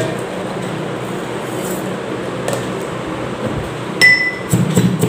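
A steady background hum, then from about four seconds in a stainless steel pestle strikes a few times inside a steel mortar with a short metallic ring, crushing coriander seeds, cumin and black peppercorns.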